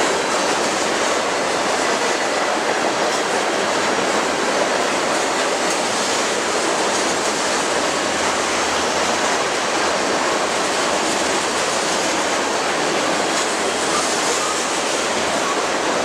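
Tank cars of a long freight oil train rolling past close by: a steady, unbroken noise of steel wheels running on rail.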